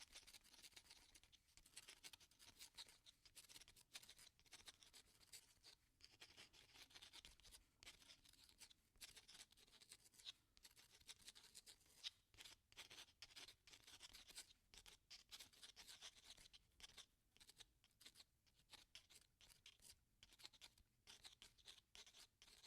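Pen writing: a faint, continuous run of short scratchy strokes with brief pauses between them.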